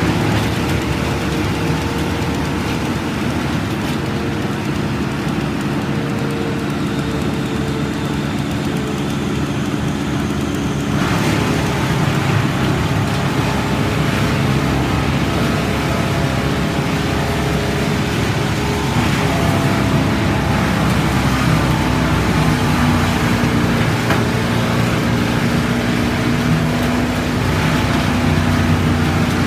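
A large engine running steadily, growing louder and fuller about eleven seconds in.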